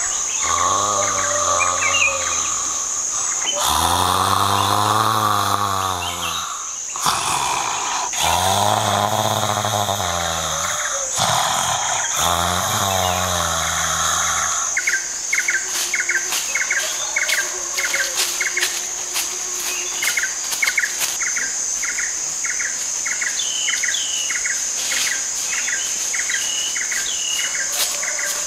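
A man snoring loudly in a series of long, drawn-out snores that swell and fade, over a steady high insect drone. About fifteen seconds in the snoring stops, leaving regular chirping about twice a second and a few higher bird calls.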